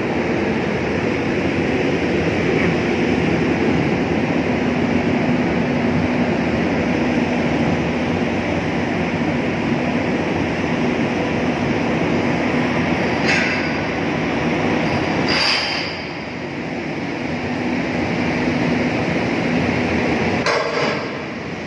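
Steady engine noise of a terminal tractor running while it moves cargo trailers across a ro-ro ship's steel deck, with a steady low hum. Three sharp clanks come about 13, 15 and 21 seconds in.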